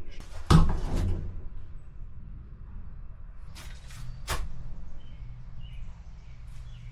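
A loud bang about half a second in that rings briefly, then three short sharp knocks a little past the middle.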